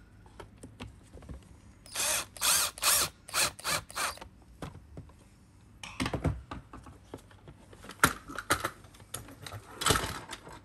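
Screwdriver driving T15 Torx screws into the plastic housing of a Dyson DC25, heard as a run of about seven short bursts about two seconds in. Later come several sharper knocks and clatters as the plastic parts are handled.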